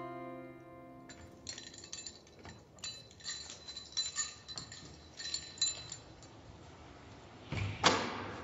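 The last acoustic guitar chord of the song fades out, then faint light metallic clinks and jingles like keys handled at a door, with a louder clunk near the end as the door's handle or latch is worked.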